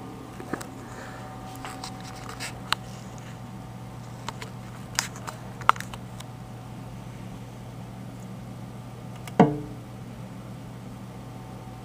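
A wooden bark hide in a reptile tank being handled: a few light clicks and taps, then a louder knock with a brief ring about nine seconds in as a hand grips and lifts it. A steady low hum sits underneath.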